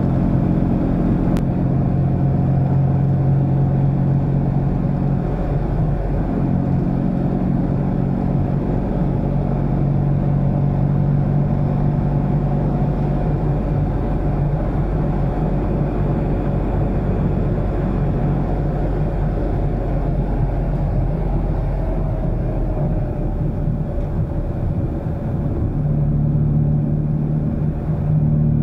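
Fiat 126p's rear-mounted two-cylinder engine running under way, heard from inside the cabin with road noise. The engine note eases in the middle and picks up again strongly near the end.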